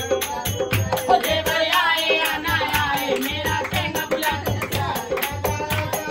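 Upbeat Indian folk-style song: a singing voice over a steady hand-drum beat, with rattling, jingling percussion.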